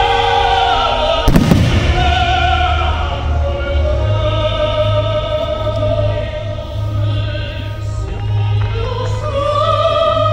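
Music with an operatic singing voice over a steady bass accompanies a fireworks display, and a firework shell bursts with one loud bang about a second and a half in.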